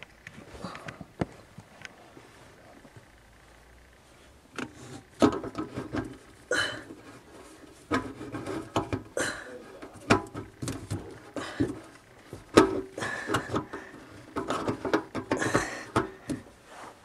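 A plastic drain pipe and its slip nut being handled and threaded onto a sink drain by hand: irregular plastic clicks, knocks and scraping, starting about four seconds in.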